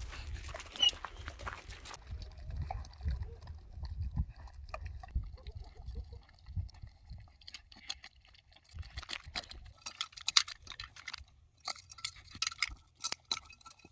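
A starving stray dog eating from a bowl: a run of small clicks and crunches as it chews and licks, which grows busier after about seven seconds. Wind rumbles on the microphone in the first couple of seconds.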